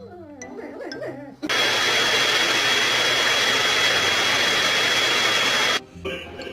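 A small electric motor runs loud and steady with a thin high whine. It starts sharply about a second and a half in and cuts off suddenly about four seconds later.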